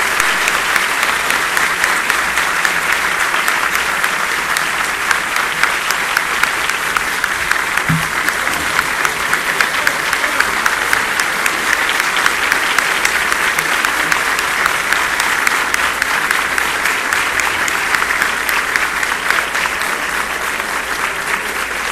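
A large audience applauding in a long, steady ovation of many hands clapping together, easing slightly near the end.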